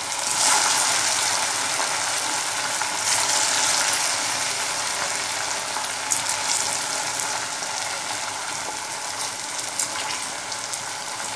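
Hot oil in a metal kadai sizzling and bubbling as slices of boiled taro root (colocasia) are dropped in by hand to deep-fry. The sizzle surges as the pieces go in, about half a second in and again around three seconds in, with a few sharp spatter pops later and a slow easing off.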